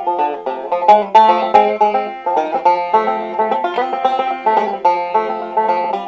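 A banjo being picked: a quick, continuous run of bright plucked notes.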